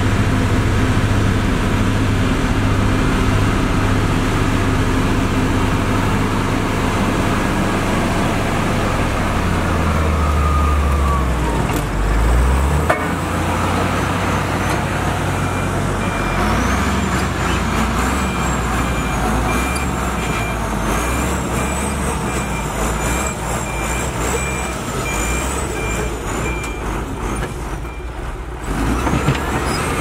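Heavy diesel engines of road-building machinery (motor grader and road roller) running under load, with a steady low rumble that shifts in pitch partway through. In the second half a backup alarm beeps evenly for about ten seconds.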